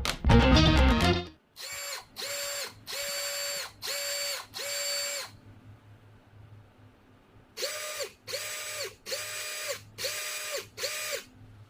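Milwaukee M18 FIW212 cordless impact wrench run off load in short trigger pulls: about ten bursts of half a second or so, in two groups with a pause between, each a steady whine with a rattle. This is the odd, loud noise that the wrench's rotor back cap is replaced to cure. Background music fades out in the first second.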